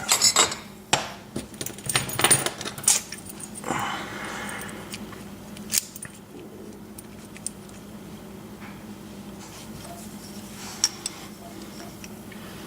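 Small metal lock parts and tools clinking and clicking against each other as a pin-tumbler lock cylinder is handled. There is a flurry of clinks over the first few seconds, then only a few scattered light ticks.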